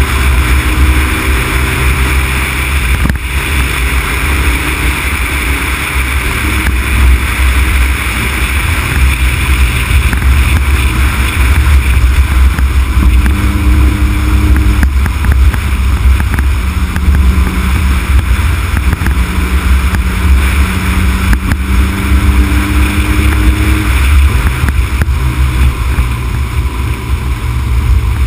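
Honda Civic Type R (EK9) driving at speed, heard mostly as heavy wind buffeting and road rumble on an outside-mounted camera's microphone. A faint engine note shifts up and down in pitch, mostly in the second half.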